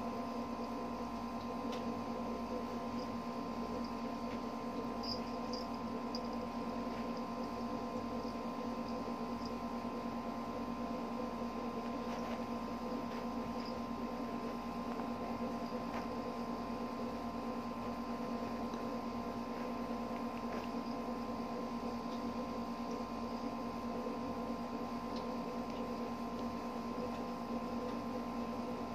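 Steady electrical hum with several fixed tones, with a few faint light ticks about five seconds in.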